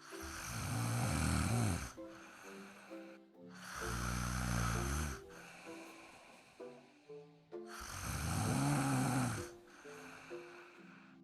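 A sleeping dog snoring: three long snores about four seconds apart, each rising and falling.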